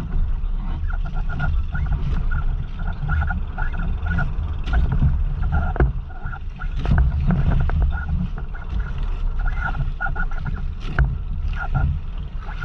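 Wind and waves on a small outrigger fishing boat at sea: a steady low rumble, with short creaking tones repeating irregularly and a few sharp knocks.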